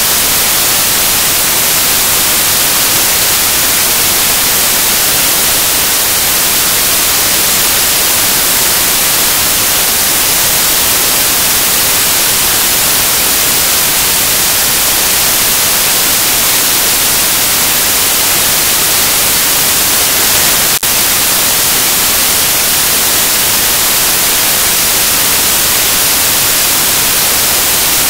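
Loud, steady electronic static hiss in place of any programme sound, as from a dead or faulty audio feed. A single click sounds about twenty-one seconds in.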